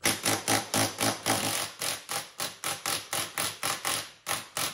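Cordless impact gun with a 19 mm socket hammering on the top nut of a coilover strut, undoing it. It goes in a fast, even rattle of about six strikes a second.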